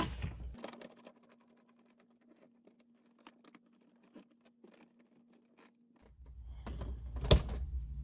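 Plastic cupholder coin-slot insert snapping onto its four clips in a car's center console, heard as one sharp click near the end. Before it, near silence with a few faint ticks.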